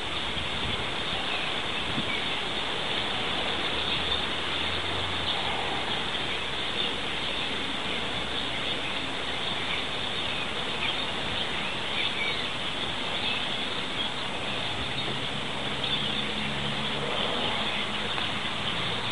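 A huge flock of European starlings feeding on the ground, hundreds of birds chattering and calling at once in a dense, steady din.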